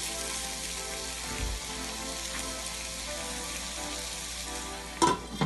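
Sliced onions sizzling steadily in melted butter in a pot, being sweated over low heat until they turn translucent. Two brief louder sounds come near the end.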